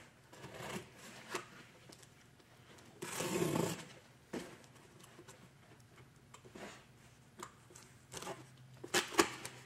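Utility knife slitting packing tape on a cardboard box, with cardboard being scraped and handled. There is a louder scraping rush about three seconds in, and a few sharp clicks near the end.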